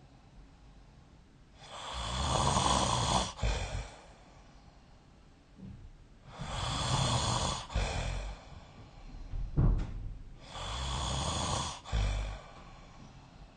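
A person snoring in slow, regular breaths: three long snores about four seconds apart, each ending in a short sharp sound, with another brief sharp sound between the second and third.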